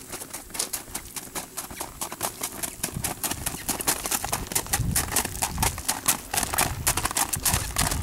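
Horse's hooves striking a gravel driveway at a brisk gait, a quick run of crunching hoofbeats that grows louder as the horse comes closer.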